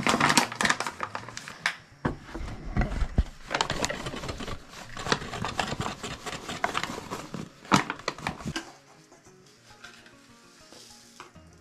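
Flour poured from a packet into a stainless steel bowl: the packet crinkles and rustles with irregular crackles and small knocks, stopping about nine seconds in. Faint background music underneath.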